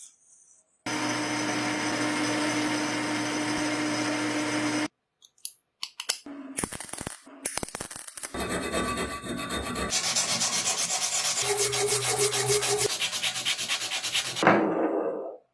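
Workshop restoration sounds: a power tool runs steadily for about four seconds and stops, followed by a few clicks of handling. Then comes a long stretch of fast, rhythmic rubbing like sanding metal parts, which cuts off near the end.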